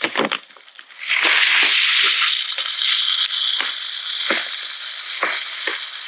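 Loud, steady close-up rustling noise starting about a second in, with small clicks and a few soft knocks in it.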